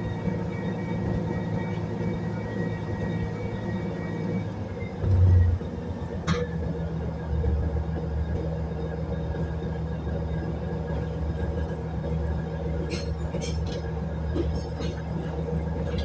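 Batara Kresna diesel railbus running slowly, heard from inside the car: a steady engine and running hum. A short low thump comes about five seconds in, and a few sharp clicks come near the end.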